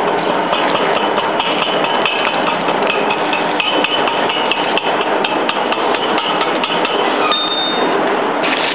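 Hammer blows on steel, repeated many times with a short metallic ring after them, over a steady din of workshop noise; a brief high ring stands out about seven seconds in.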